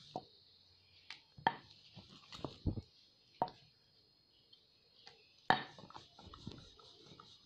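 Wooden rolling pin rolling out a ball of dough on a wooden board, with scattered knocks and clatter as the pin meets the board; the loudest knock comes about five and a half seconds in.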